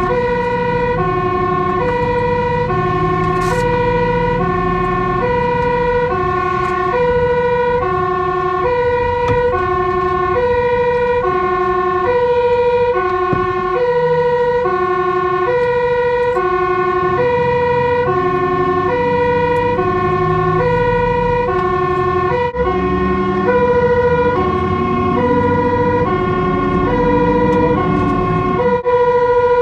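Dutch fire engine's two-tone siren alternating between a low and a high note, each held about two-thirds of a second, over the rumble of the truck's engine and road noise.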